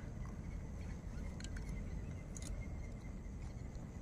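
Low, steady outdoor rumble with a faint thin high tone, and a few faint clicks about halfway through.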